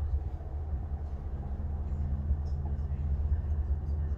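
Approaching commuter train: a steady low engine hum comes in about a second in, over a heavy low rumble.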